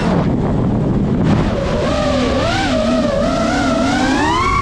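5-inch FPV quadcopter's brushless motors and propellers whining over a rush of air. The pitch wavers with the throttle and climbs steadily over the last couple of seconds.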